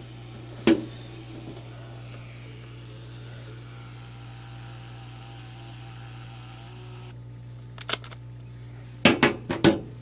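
MakeID E1 thermal label maker printing a label: its small feed motor whirs steadily, then stops abruptly about seven seconds in. A click comes about a second in, and a quick run of clicks comes near the end.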